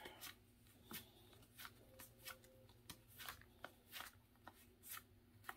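Pokémon trading cards being flipped through one by one in the hands: faint, uneven card flicks and slides, about two a second.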